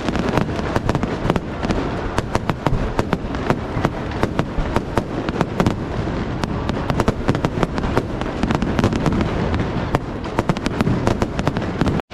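Fireworks display going off overhead: a rapid, irregular string of sharp cracks and bangs, several a second.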